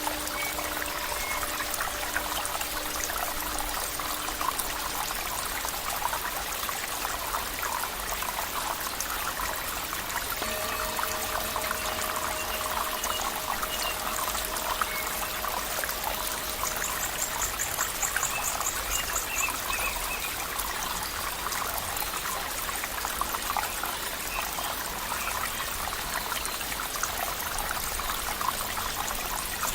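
Water flowing and trickling steadily, like a small stream, with faint held tones in the background at the start and again in the middle.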